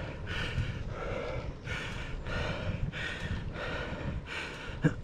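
A cyclist breathing hard in a steady rhythm, about two breaths a second, from the effort of climbing a hill.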